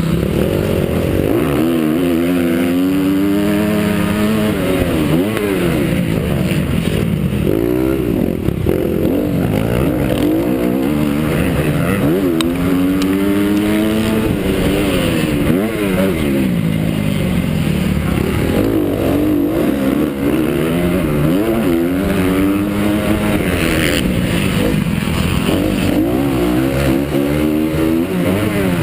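Honda CRF250 four-stroke motocross bike engine revving hard under race load, its pitch climbing and dropping again and again as the rider opens and shuts the throttle through the track's sections.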